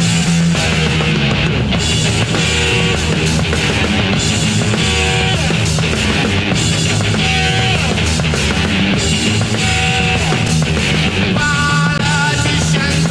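Loud punk-rock backing music with distorted guitars and a drum kit.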